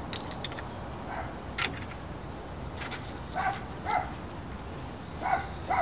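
A series of about five short animal calls, spaced a second or two apart, with a few sharp, crisp clicks in between.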